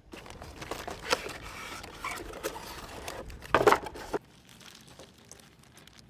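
Plastic packaging being crinkled and torn open by hand, with many sharp crackles. The loudest tear comes about three and a half seconds in, and the sound stops abruptly just after four seconds.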